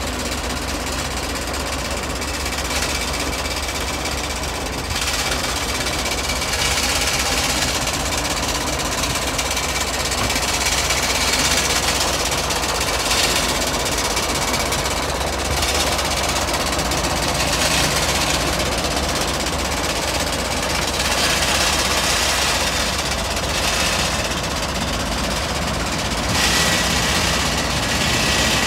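Tractor diesel engine running with a steady knocking clatter while the tractor rolls on a flat, torn rear tyre. A hissing noise swells and fades every few seconds over the engine.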